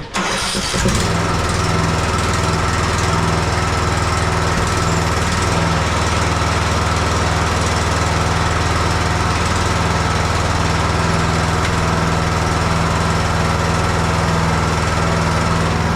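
20 hp Briggs & Stratton Intek engine on a riding mower starting up and settling into a steady run about a second in.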